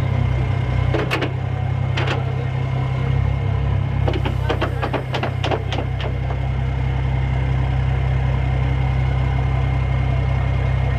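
Amphibious Combat Vehicle's diesel engine idling steadily, with a few sharp clicks and a quick run of clicks and knocks about four to five seconds in.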